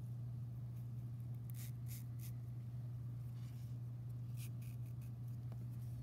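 Faint scratchy rubbing of bracelet cords being handled and slid through a sliding-knot clasp, a few short scrapes around two seconds in and again past four seconds, over a steady low hum.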